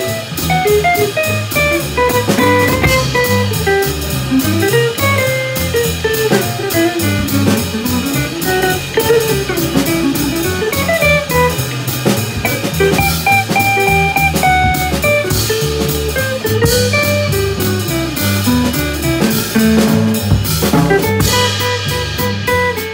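Live jazz trio: an acoustic guitar plays a single-note melodic line over a plucked upright double bass and a drum kit keeping time on cymbals.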